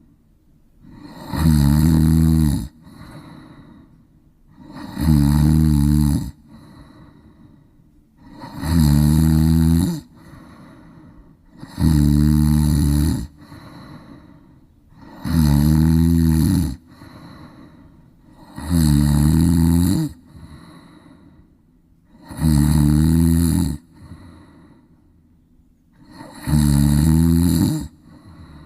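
A sleeping cat snoring: a loud, low-pitched snore about every three and a half seconds, eight in all, each followed by a softer breath.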